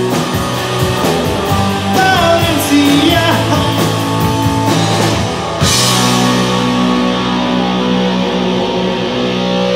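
Live rock band with electric guitars, bass guitar, drum kit and a singing voice playing. About halfway through a cymbal crash lands, after which the drums drop out and the guitars and bass hold a ringing chord.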